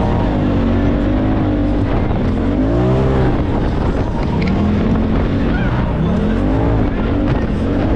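Side-by-side UTV engine revving up and down with the throttle over sandy trail, its pitch rising and falling several times over a steady low rumble.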